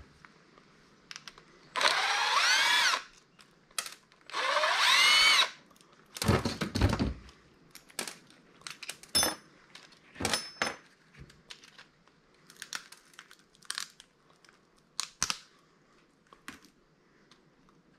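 Cordless drill run in two short bursts, each whining up in pitch and winding back down, as it backs out screws during disassembly. A low thud follows, then scattered clicks and clatter of small parts being handled.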